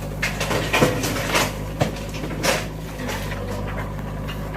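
JCB 3DX backhoe loader's engine running steadily while it digs, with several sharp knocks and scrapes over the first two and a half seconds.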